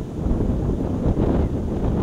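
Wind buffeting the microphone: a loud, gusty low rumble that rises a little just after the start.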